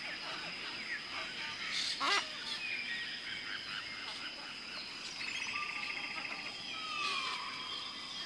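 Several small birds singing and chirping, with a steady high-pitched tone underneath. A louder, harsher call cuts in about two seconds in, a buzzy trill follows around five seconds, and a falling whistle comes near seven seconds.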